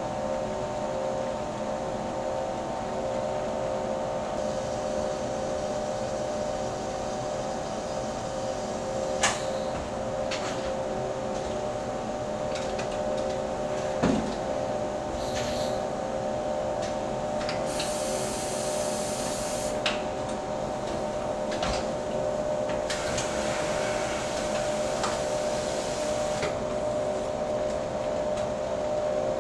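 Automated battery-cell winding machine running: a steady mechanical hum with a few sharp clicks, and two longer bursts of hiss, one past the middle and one near the end.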